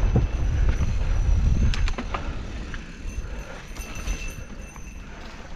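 Mountain bike rolling fast down a dirt singletrack, heard from a camera on the rider: a low rumble of tyres and air over the microphone, with scattered clicks and rattles from the bike. The rumble eases about two seconds in.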